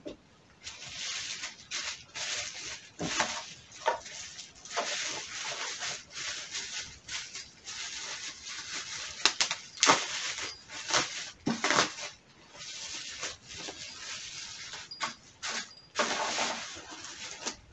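Bubble wrap crinkling and rustling as it is handled and peeled off a boxed item, in irregular bursts with a few sharp cracks near the middle.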